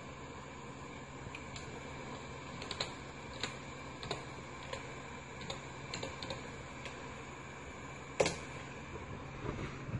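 Keystrokes on a computer keyboard as a DOS command is typed, single separate clicks with a louder keystroke about eight seconds in, over the steady hum of the running PC.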